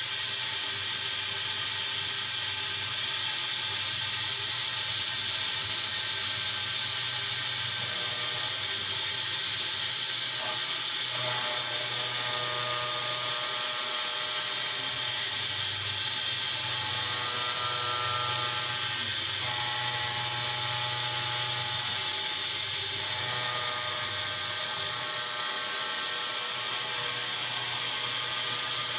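A 40 mm shell mill with APKT 1604 carbide inserts cutting a block of 2017 aluminium on a CNC mill. It makes a steady cutting sound over a constant high hiss, with whining tones that change pitch several times as the tool moves along the contour.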